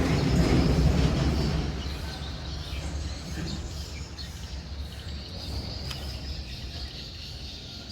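Outdoor background: a low rumble fades over the first two seconds, leaving faint bird chirps and a thin, steady high insect-like buzz.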